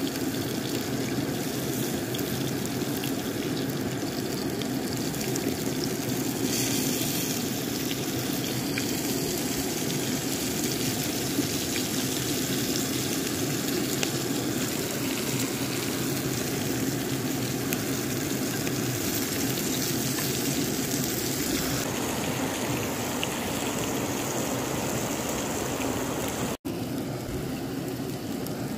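Steady rushing of a small creek's running water, with a split-second dropout near the end.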